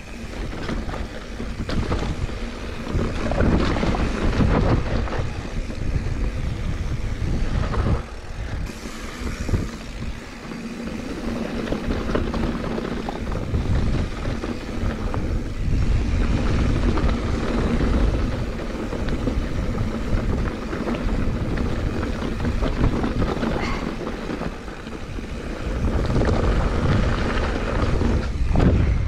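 Wind buffeting the microphone during a fast mountain-bike descent, mixed with tyres rolling on a dusty dirt trail. Occasional sharp knocks come from the bike going over bumps.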